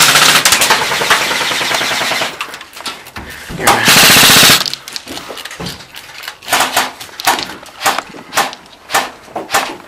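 Airsoft electric guns firing: a rapid full-auto burst for about two seconds, a much louder close burst of about a second near the middle, then scattered single shots.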